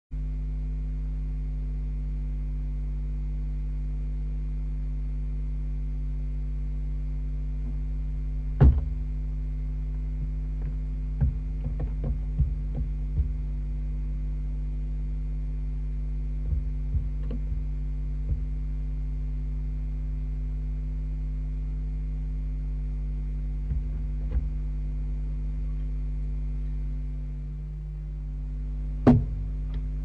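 Steady electrical mains hum from the nest-box camera's audio, with scattered knocks and taps of a barn owl moving about on the wooden nest box and beam, the loudest a sharp knock about nine seconds in and another just before the end.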